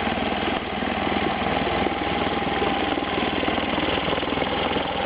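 1946 Scott-Atwater 3.5 hp two-stroke outboard motor running steadily with a fast, even firing pulse, its cooling-water pump working.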